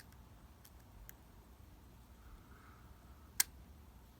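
Lock-picking tools working in a lock: a few faint, light clicks, with one sharper click about three and a half seconds in.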